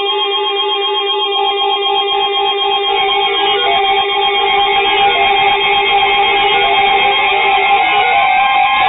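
Instrumental music: held notes over a quick repeating pattern, growing slightly louder.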